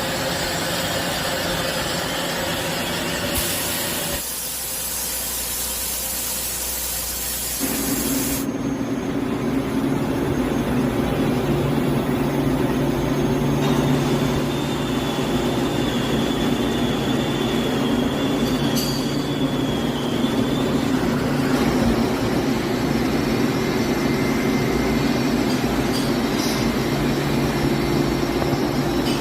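CNC machine tool running: a steady mechanical hum and hiss that shifts in character a few times, with a thin high whine for several seconds in the middle.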